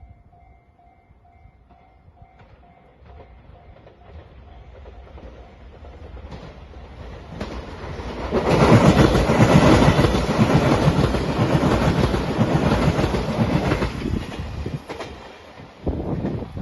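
A level-crossing warning bell chimes rapidly at first, while a JR Shikoku 8000 series Shiokaze electric limited express train approaches. The train passes loudly about halfway through with wheels clattering on the rails, then fades.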